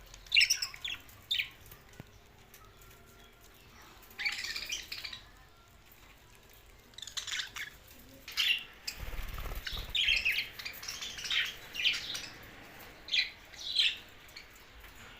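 Budgerigars chirping in scattered bursts of quick, high chirps, with short quiet gaps between the bursts.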